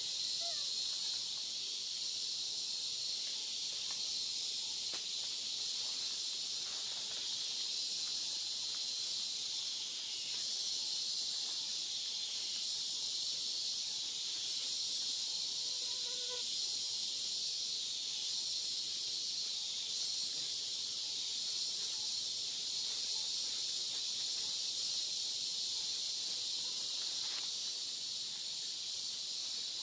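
Steady, high-pitched drone of a forest insect chorus, unchanging throughout.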